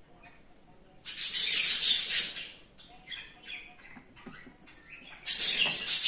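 Budgerigars chattering in two loud bursts of fast, repeated high notes: one about a second in that lasts a second and a half, and another that starts near the end.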